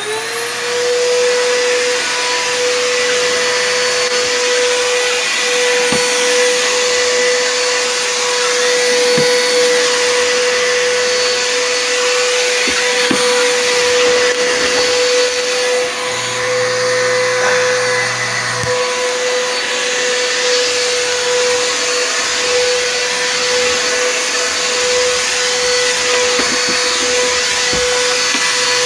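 Bissell PowerForce Helix 12B1 upright vacuum cleaner switched on, its motor winding up to speed within the first half second, then running with a steady whine over a rushing hiss as it cleans the floor, with a few faint ticks.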